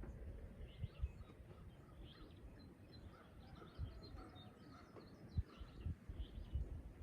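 A faint morning bird chorus: several birds chirping and calling in short, scattered high notes, with a few longer whistled notes in the middle. Low thumps come through now and then, the loudest about a second in and again near the middle and end.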